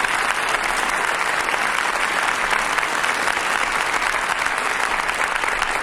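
Theatre audience applauding, dense steady clapping from many hands.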